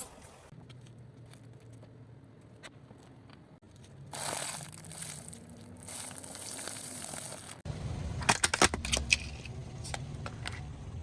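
A car rolling over and crushing soft objects: a steady hiss for about three seconds, then a low rumble sets in with a quick run of sharp crinkling cracks, the loudest part, about a second later.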